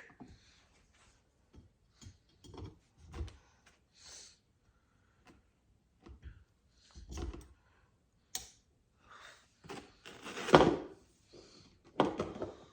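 Handling noise from parts of a Halloween animatronic being fitted together: scattered knocks, rubs and clicks, with a louder rustling thump about ten seconds in and another near the end.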